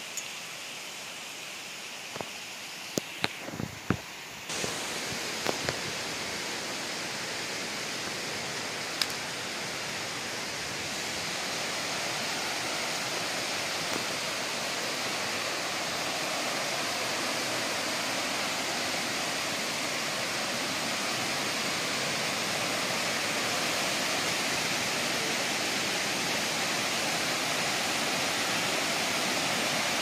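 Water rushing over shallow, terraced cascades of a forest waterfall: a steady rush that grows a little louder after about ten seconds. A few sharp knocks come in the first six seconds.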